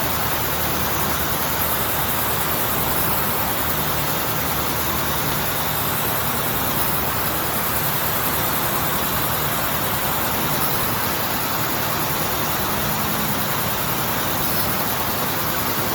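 Automatic meat bandsaw running while cutting pork loin: a steady, unbroken machine noise with a low hum under it.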